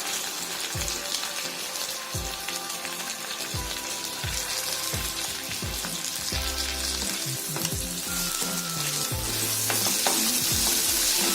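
Spice masala (ginger-garlic paste with ground coriander, chilli powder and turmeric) sizzling in hot oil in a pan while it is stirred; the sizzle gets louder near the end.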